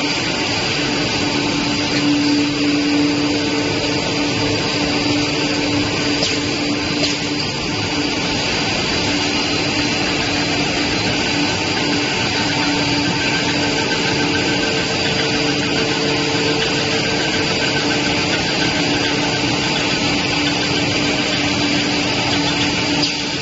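Cast stretch film extrusion line running: a steady mechanical whir with a constant low hum and a high whine held through.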